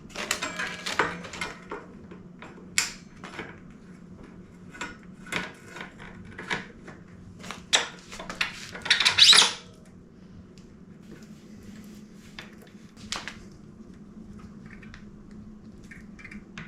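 Scattered clicks, clinks and knocks of bicycle parts and tools being handled, with a louder scraping rustle about nine seconds in. After that only a faint steady hum remains.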